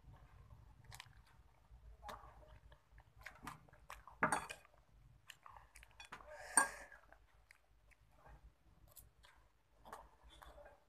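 Close-up chewing and mouth noises of someone eating spicy instant fried noodles with rice, with many small clicks and two louder sharp sounds about four and six and a half seconds in.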